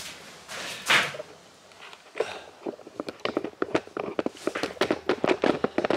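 Bare footsteps across a cardboard-covered floor, then the camera being grabbed and handled. There is one soft knock about a second in, then a dense run of irregular clicks and taps over the last few seconds.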